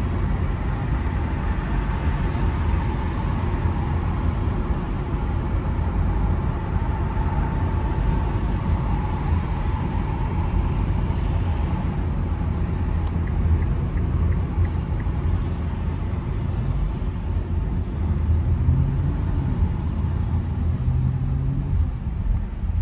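Inside the cabin of a Nissan Leaf electric car driving slowly: a steady low road and tyre rumble with no engine note, and a faint high whine for a few seconds around the middle.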